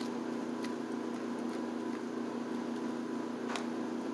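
Steady background hum, with a couple of faint clicks as the clay-covered foil armature is handled.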